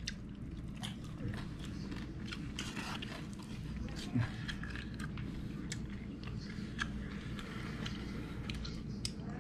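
Someone chewing and biting food close to the microphone: many small, irregular crunches and clicks.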